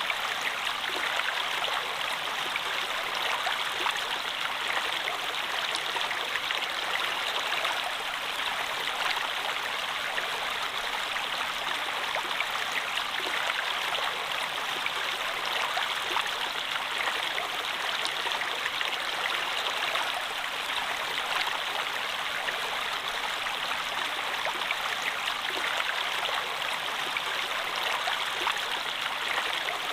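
Water flowing steadily, a continuous, even rush of running water with no pauses or changes.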